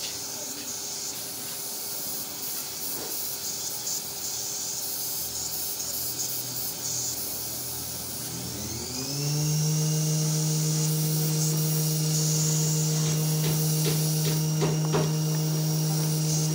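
Compressed-air spray gun hissing as it sprays enamel undercoat. About halfway through, the air compressor's motor starts, its hum rising briefly in pitch before it runs steadily with a high whine, and a few clicks come near the end.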